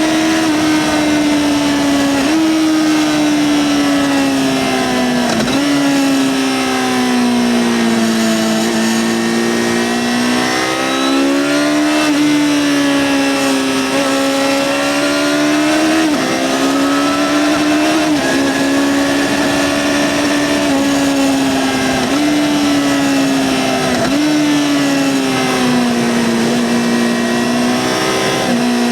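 2009 Yamaha XJ6-N's 600 cc inline-four engine running through its stock exhaust while ridden at varying speed. The engine note sinks slowly and then jumps back up in pitch every few seconds as gears change, with a few stretches of rising revs.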